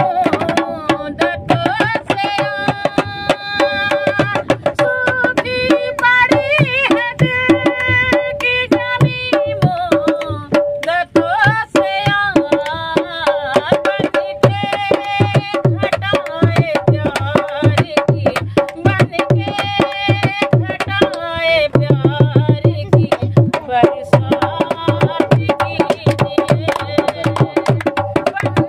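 A woman singing a song to a dholak played by hand, the drum keeping a steady quick beat under her voice, with a spell of heavier bass strokes a little after the middle.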